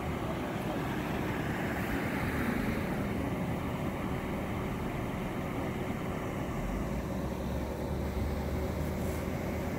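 Steady outdoor background of street traffic, with wind rumbling on the microphone. A deeper low rumble sets in about seven seconds in.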